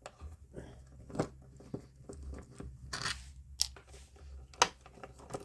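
A driver with a small Phillips bit backing screws out of a power bus strip: a low, uneven motor whir with scattered clicks and taps of the screws and handling.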